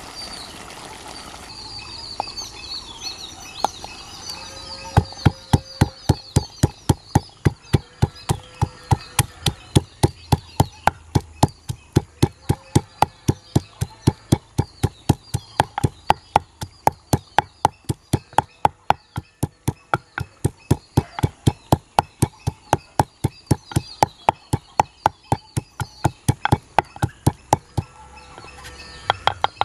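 Wooden pestle pounding garlic and spices in a wooden mortar: a long, even run of sharp knocks, about two to three a second, starting about five seconds in and stopping shortly before the end. Birds chirp in the background.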